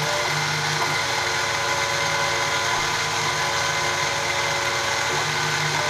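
CNC-converted Sieg X2 mini mill running a light engraving pass in wood: a steady motor whine of several held tones over a low hum.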